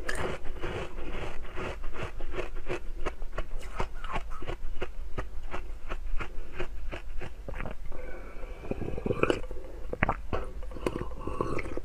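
A block of frozen milk ice crunching and cracking as it is bitten and chewed: a quick run of crisp crunches, several a second, with a few louder cracks near the end.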